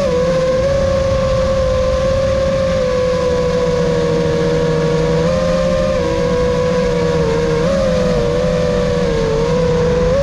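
An FPV racing quadcopter's four Emax Eco II 2306 1700KV motors spinning 5-inch tri-blade props on 6S: a steady, loud buzzing whine at cruising throttle. Its pitch wavers slightly with small throttle changes, over a rushing noise of prop wash.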